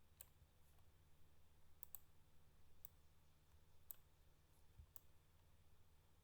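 Faint computer mouse clicks, about six of them spread through the few seconds, including a quick double-click about two seconds in, over a steady low hum.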